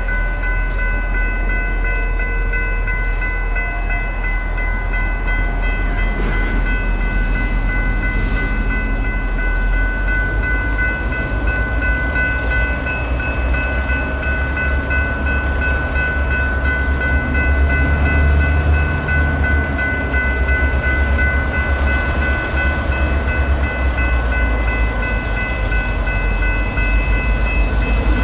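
General Signals Type 3 electronic crossing bells ringing without a break, over a low diesel rumble that grows louder past the middle.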